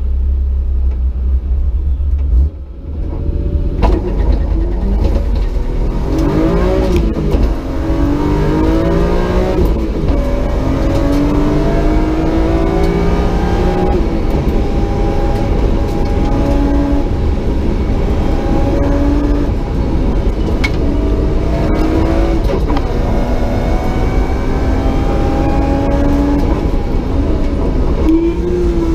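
BMW S50B30 3.0-litre straight-six in an E36 Compact, at full throttle, heard from inside the cabin. The engine note climbs and drops back several times as it is shifted up through the five-speed H-pattern gearbox, then runs steadier with small changes and one more rise near the end.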